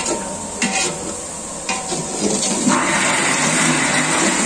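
Sliced onions, green chillies and curry leaves sizzling in oil in a large aluminium pot, stirred with a wooden spatula that knocks and scrapes against the pot a few times in the first two seconds. About two-thirds of the way through, a louder steady rushing noise comes in over the sizzle.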